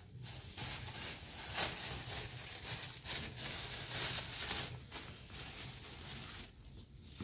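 Thin plastic bag crinkling and rustling as it is handled, an irregular stream of crackles that dies down about six and a half seconds in.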